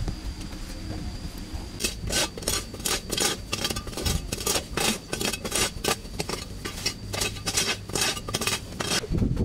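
Rhythmic scraping strokes, about three to four a second, starting about two seconds in, over a steady low hum.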